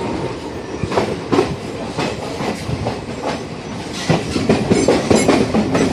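Passenger train running on the rails: a steady low rumble of the coaches with irregular clacks and knocks of the wheels over rail joints.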